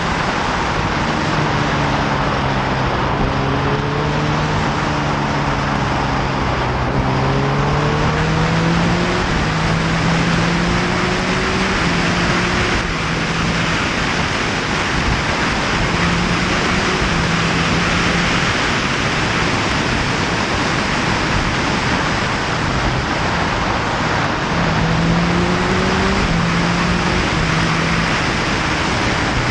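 Motorcycle ridden at speed, with heavy wind rushing over the camera microphone. The engine note rises in pitch through the first half and again near the end.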